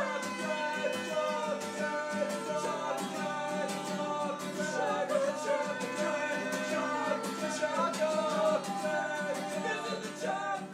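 Music: a song with a voice singing over strummed guitar.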